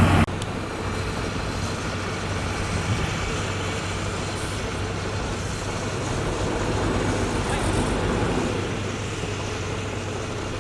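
Heavy road-construction machinery running steadily, with a diesel engine's low hum. The level drops suddenly just after the start, then swells a little in the middle before settling again.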